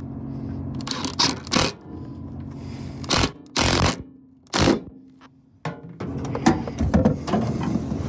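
Power drill driving self-tapping tech screws in three short bursts a few seconds in, among clicks and knocks of handling the mounting hardware, over a steady low hum.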